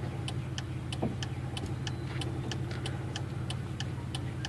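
Car engine idling, heard from inside the cabin, with a steady light ticking about three times a second over it. A faint knock about a second in.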